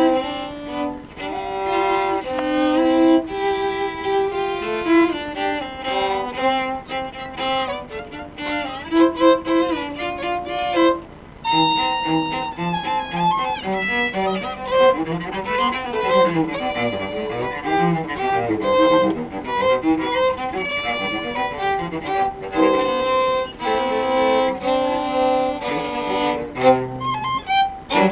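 Violin and cello playing a classical piece together, the violin carrying a quick-moving melody over lower cello notes, with a brief pause about a third of the way through.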